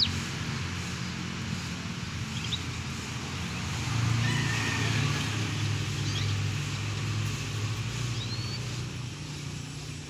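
A motor vehicle engine running with a steady low hum, swelling louder about four seconds in and easing off again, with a few short bird chirps over it.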